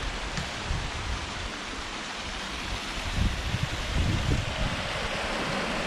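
Small mountain stream and waterfall splashing steadily over rocks into a pool, with wind buffeting the microphone at times.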